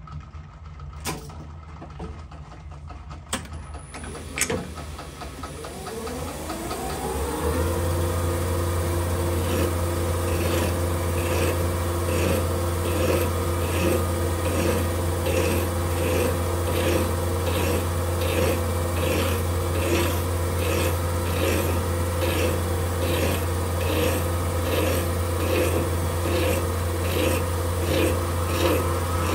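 A small metal lathe is switched on, spins up with a rising whine, then runs at a steady hum. Over it comes a regular rhythm of scraping strokes as a hand file is worked against a tungsten button turning in the chuck.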